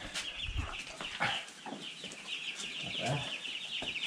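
A brood of two-week-old meat chicks peeping without pause, many short high chirps overlapping. A few soft low thumps sound among them.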